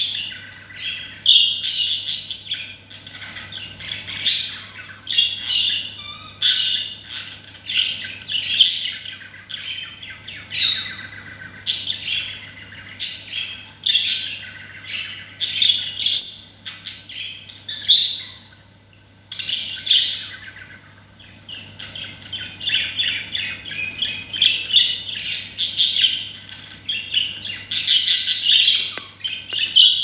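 Budgerigars chirping and chattering: quick runs of short, high calls one after another, with a brief pause around two-thirds of the way through.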